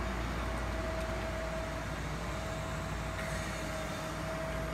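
Steady low engine rumble with a thin, steady whine over it, like a heavy excavator's engine running.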